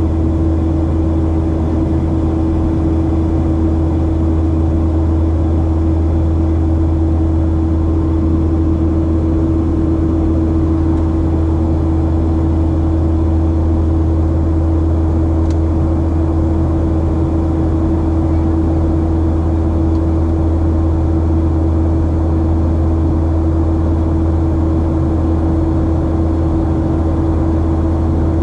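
Steady cabin drone of a Boeing 737-700 in flight: its CFM56-7B turbofans run at a constant setting with a deep hum, a steady mid-pitched tone and rushing airflow noise.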